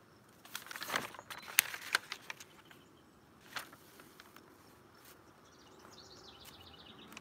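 Handling noise from a notebook and pen: a cluster of sharp clicks and scrapes in the first couple of seconds and one more click a little later. Near the end a bird sings a short run of high notes.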